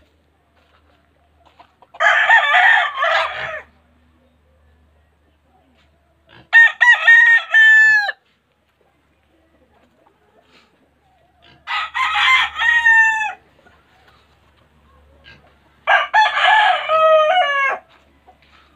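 Gamecock roosters crowing: four long crows a few seconds apart.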